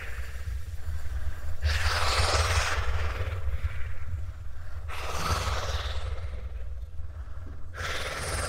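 Loose seashells crunching and clattering underfoot on a floor covered in them: three long crunching bursts about three seconds apart, over a steady low rumble.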